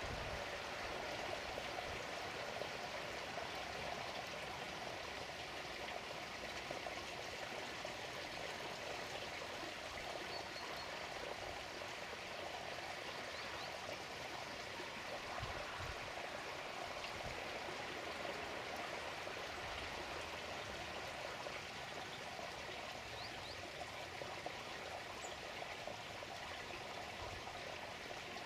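Steady running water trickling and splashing into a garden pond, with a few faint low bumps now and then.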